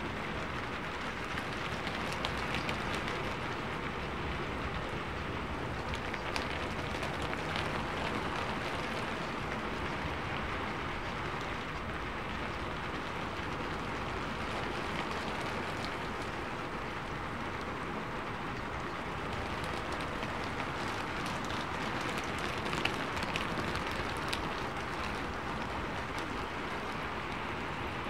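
Steady, even rain-like hiss with faint scattered ticks.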